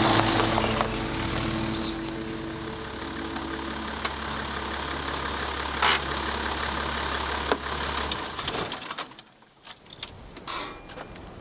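Old Toyota 4x4's engine running with a steady low hum, then switched off about eight seconds in, followed by a few clicks and a jangle of keys.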